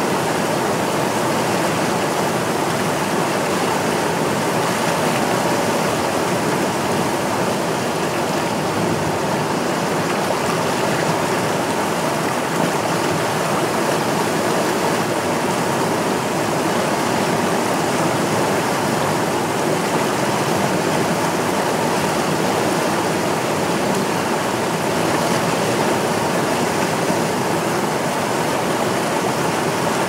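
River water flowing in a steady, unbroken rush, even in level throughout.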